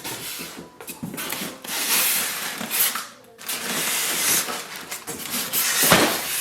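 Cardboard packaging rubbing and scraping as the printer's box and inserts are handled, in several separate bursts of scraping, with a louder knock about six seconds in.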